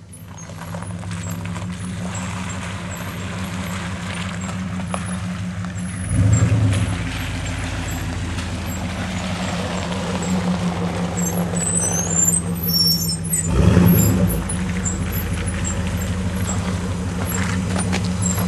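Hummer H1's engine running steadily as it drives a muddy off-road trail, swelling louder twice, about six seconds in and again near fourteen seconds.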